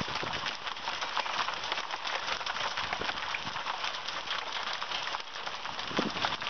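Hail and heavy rain pounding the house and lawn in a thunderstorm: a dense, steady pattering made of many tiny hits.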